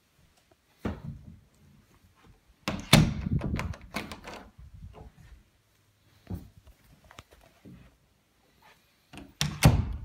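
Interior door being worked by hand: sharp thuds and clicks as it swings against the frame and the knob's latch catches. There is one knock about a second in, a louder cluster of knocks around the middle, a few lighter clicks, and another loud cluster near the end. The door latches properly.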